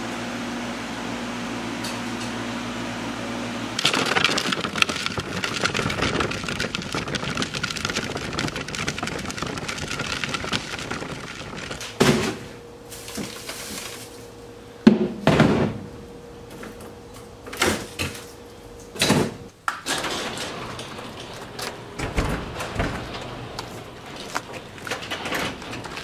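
A steady hum for the first few seconds, then a run of sharp knocks and thuds of doors or lids being opened and shut and things being handled. The loudest knocks come about halfway through.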